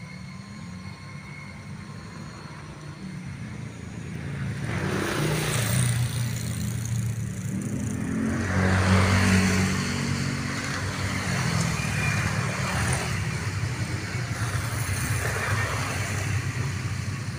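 Low engine rumble from a distant approaching diesel train, swelling from about four seconds in and strongest around nine seconds. Rushing noise rises and falls about three times over the rumble.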